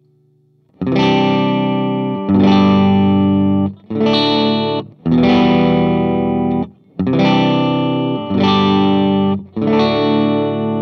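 G&L ASAT Classic electric guitar through a Vox AC30 amp, close-miked, clean tone, with the pickup selector in the middle position (neck humbucker and bridge single coil together). Starting about a second in, about seven chords are strummed, each left to ring for a second or so.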